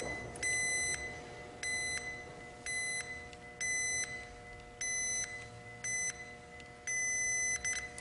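Multimeter continuity beeper giving short, single-pitched beeps at an uneven pace, about eight of them, as test leads are touched across one fuse after another. Each beep means continuity through that fuse, so the fuse is good.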